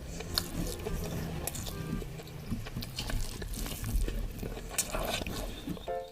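Close-miked eating: chewing with scattered short, wet mouth clicks and smacks.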